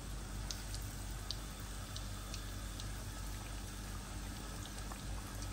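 Besan-battered kebabs deep-frying in hot oil in a wok: a steady sizzle with scattered small pops and crackles, over a faint low hum.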